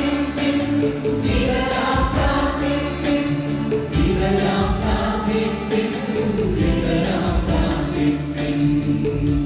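Church choir singing a hymn with instrumental accompaniment, over a steady beat of percussion strokes about twice a second.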